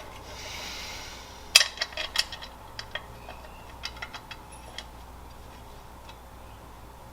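Light metallic clicks and clinks from handling the air cleaner's lid and stud while it is being threaded on. A brief rustle first, then a quick run of sharp clicks about a second and a half in, then scattered lighter ticks.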